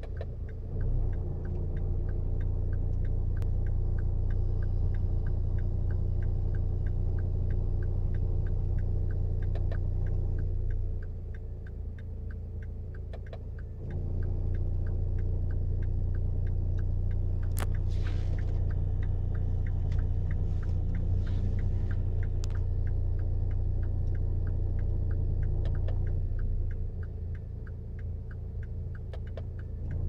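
Opel Vectra C's engine and climate system heard from the cabin: a steady low hum with a light regular ticking about two times a second. The hum drops off for a few seconds about eleven seconds in and again near the end, then comes back, in a car whose air conditioning is giving trouble.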